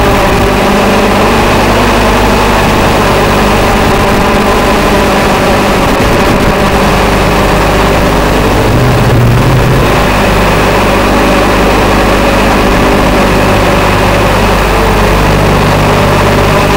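TBS Gemini mini hexacopter's electric motors and propellers running in flight: a loud, steady drone of several held pitches over a rushing haze, shifting briefly about nine seconds in as the throttle changes.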